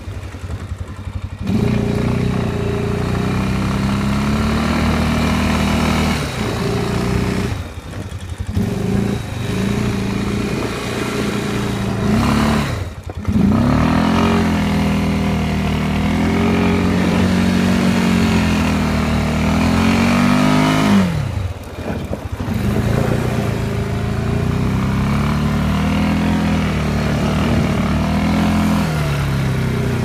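Small motor vehicle's engine running under way, its pitch rising and falling as the throttle is opened and eased, with four brief drops in sound where it comes off the throttle.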